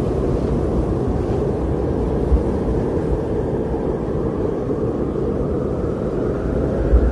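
Strong blizzard wind blowing steadily, a deep rushing rumble with a faint howl in it that rises a little near the end, and a few low gusts buffeting.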